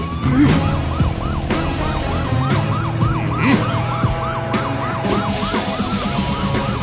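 Police car siren sound effect in a fast yelp, sweeping up and down several times a second, over background music.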